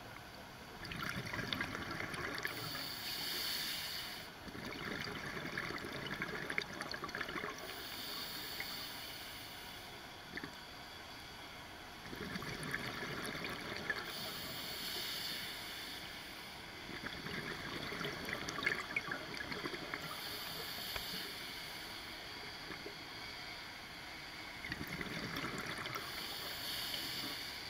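Scuba regulator breathing heard underwater: about five bursts of the diver's exhaled bubbles gurgling and crackling, a few seconds apart, with quieter stretches of regulator hiss between them.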